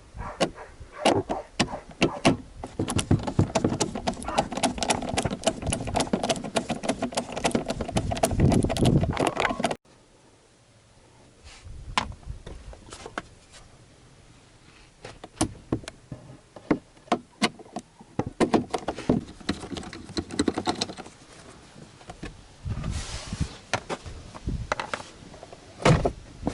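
Many quick clicks and knocks, with handling noise, of hard plastic parts being worked by hand. The sound cuts off suddenly about ten seconds in, and sparser clicks and knocks follow.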